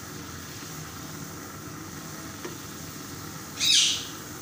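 Chicken pieces simmering in a pan of chili sauce, vinegar and soy sauce that has almost cooked dry, a steady low sizzle. Near the end there is a sharp, loud, high-pitched rasp lasting about half a second.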